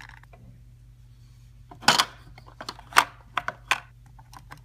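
Small plastic toy figure knocking and clicking against a plastic playset as it is moved by hand: a sharp tap about two seconds in, another about a second later, then a quick run of lighter clicks.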